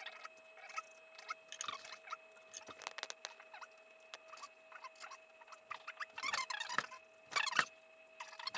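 Sped-up time-lapse audio of a boom stand and shotgun microphone being handled and fitted together: quick squeaky chirps, clicks and clatters, with louder flurries about six and seven and a half seconds in, over a faint steady hum.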